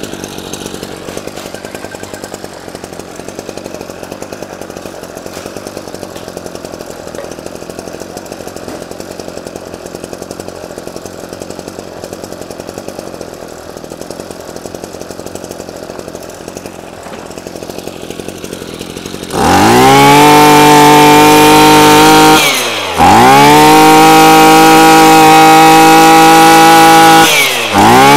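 Maruyama JC26S brushcutter's small two-stroke engine idling steadily, then revved hard to full throttle about two-thirds of the way in. Near the end the revs fall back briefly twice, and each time it is throttled up again.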